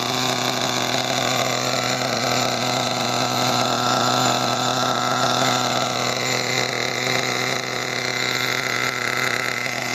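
The .21 (3.5 cc) nitro engine of a Redcat Earthquake 3.5 RC truck idling steadily during break-in. It is idling high and running rich on its factory break-in tune.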